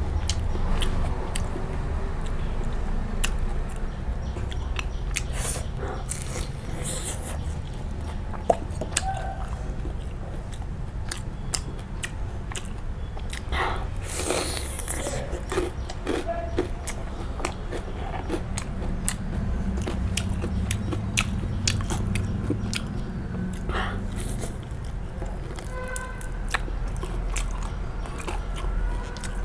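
Close-miked eating: chewing and biting with many small crisp clicks and crunches, and a longer noisy burst about halfway through.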